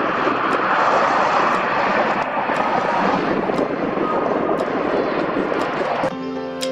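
City street traffic noise at a busy road junction: a steady, loud rumble of passing cars and a lorry, with faint ticks about once a second. Background music comes in near the end.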